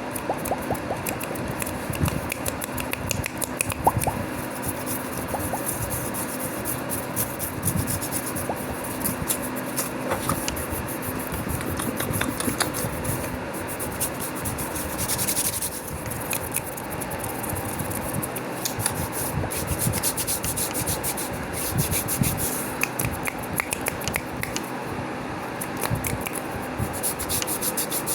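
Fast, close-miked hands rubbing together and fingernails scratching skin, a continuous dry rasping texture peppered with many small clicks.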